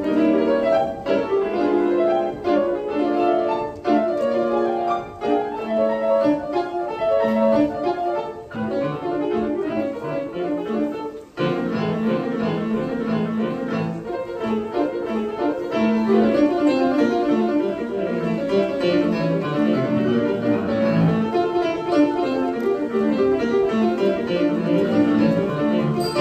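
Solo piano playing a fast, busy passage of many quick notes, with a brief break about eleven seconds in, closing on a loud final chord that then dies away.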